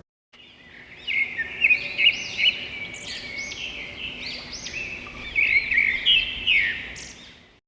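Songbirds chirping and singing, with quick, overlapping chirps and warbles that fade out near the end.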